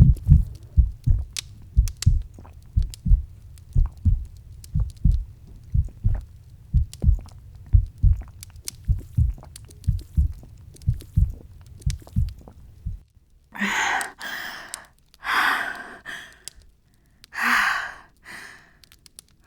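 Heartbeat sound effect: steady paired low thumps (lub-dub) that stop about thirteen seconds in. Then a woman's voice makes a series of loud, breathy breaths, about six of them.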